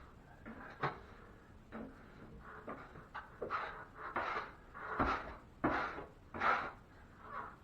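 6-inch drywall knife scraping over setting quick-set joint compound in a series of strokes, about one a second, taking off the extra material while slicking out the patch.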